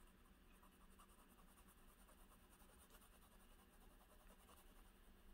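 Faint, rapid scratching of a TWSBI 580ALR fountain pen's 1.1 stub nib on paper, hatching back and forth to fill in an ink swatch.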